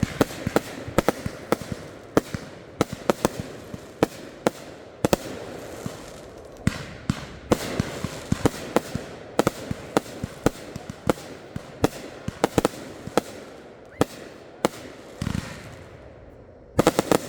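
Consumer fireworks going off: a run of sharp bangs at irregular spacing, about one or two a second, with a quick cluster of several bangs near the end.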